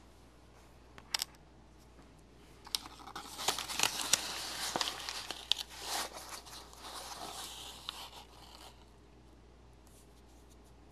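Paper flour bag crinkling and rustling as it is handled, loudest in the middle and dying away about nine seconds in. A couple of sharp clicks come about a second in.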